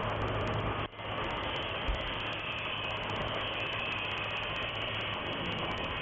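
Steady factory machinery running, an even noise with a constant low hum. It drops out briefly about a second in.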